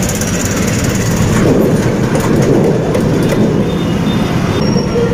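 Steady, loud rumble of a vehicle moving along a road, heard from on board, with no clear rise or fall.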